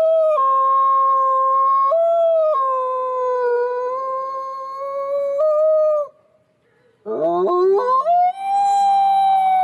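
A white wolf howling. One long howl with a few sudden steps down and up in pitch breaks off about six seconds in. After a second's pause a new howl starts as short notes climbing in pitch and settles into a long held note.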